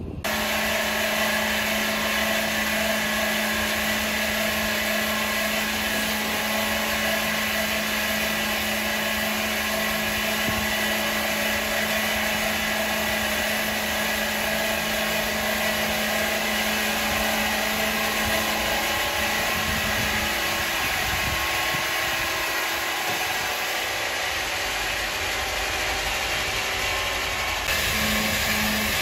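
Powered wood saw machine running with steady, loud mechanical noise and a steady hum; the hum fades away about two-thirds of the way through while the machine noise carries on.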